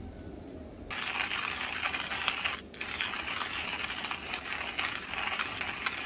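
Stainless-steel hand coffee grinder being cranked, its burrs crunching and crackling through whole coffee beans. The grinding starts about a second in and stops briefly near the middle.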